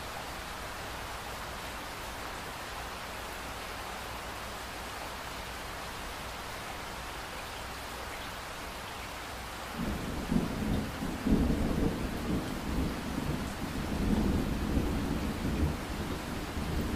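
Rain-and-thunder ambience: a steady rain-like hiss, joined about ten seconds in by a low, uneven rumble of thunder that keeps rolling on.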